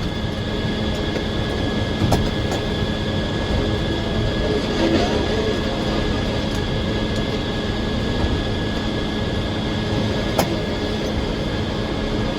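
Sawmill machinery running steadily, a continuous mechanical hum with a few sharp clicks.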